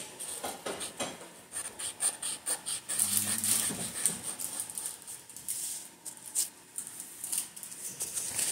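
Markers colouring on paper close to the microphone: quick, uneven scratchy strokes and taps, several a second.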